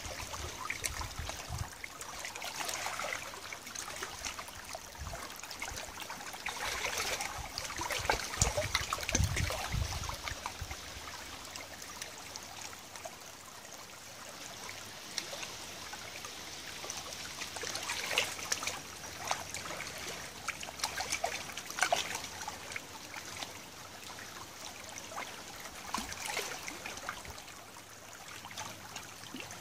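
Shallow tidal river water trickling at the edge of a muddy bank, with many small pops and clicks. Low rumbling sits under it for about the first ten seconds.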